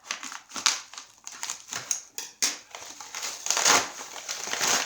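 Shipping packaging crinkling and crushing as it is handled and pulled at, in irregular bursts of rustling that grow louder toward the end.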